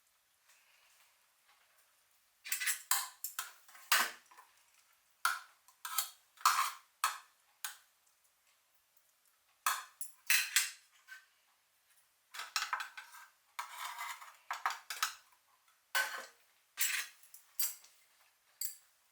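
A metal utensil clinking and scraping against an aluminium mess tin in irregular short bursts, with brief pauses between.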